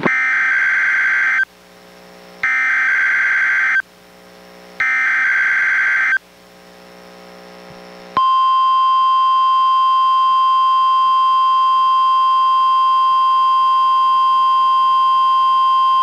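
NOAA Weather Radio Emergency Alert System test signals received on a weather radio: three bursts of the SAME digital header, a rasping warble about a second and a half long repeated with about a second between each, then the steady single-pitched 1050 Hz warning alarm tone that starts about two seconds after the last burst and holds on. Together they mark a Required Weekly Test of the alert receivers.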